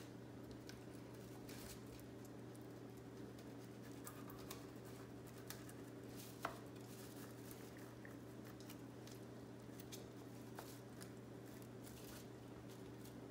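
Faint scraping and small clicks of a knife cutting along the side of a pigfish on a plastic-covered cutting board, with one sharper click a little past the middle. A steady low hum runs underneath.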